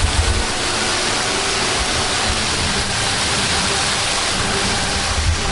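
Waterfall: water falling from a height and splashing onto rocks, a steady loud rush. A few low thumps on the microphone just after the start and again near the end.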